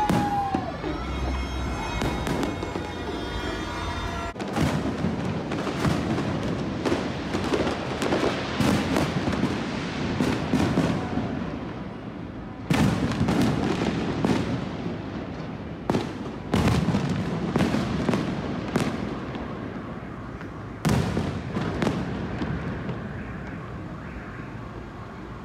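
Fireworks bursting and crackling in a dense, continuous barrage of bangs, with several louder bangs in the second half.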